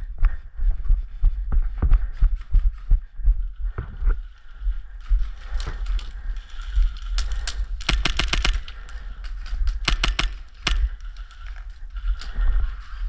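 Steady low rumble with irregular thumps and scattered sharp clicks and rattles, denser in short clusters around the middle, typical of movement and gear noise picked up by a carried microphone.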